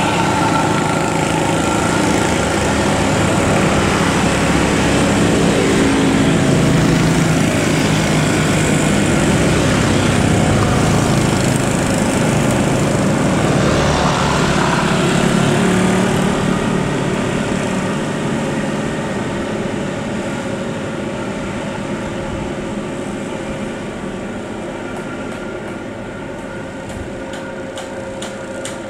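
Large bus's diesel engine and exhaust running hard, loudest through the first half and then slowly fading as the bus pulls away.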